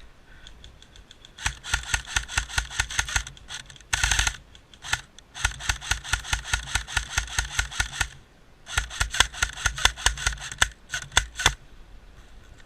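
Airsoft gun firing close by in long, rapid strings of shots, several seconds each with short pauses between, ending in a few single shots near the end.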